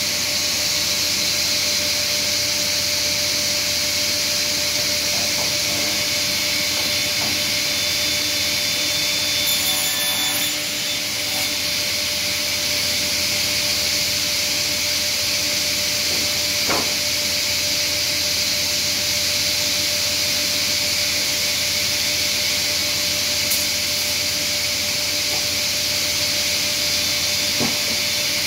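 Sliding table panel saw running steadily while a rough-sawn board is cut to length, with an even whooshing hiss from the spinning blade and motor.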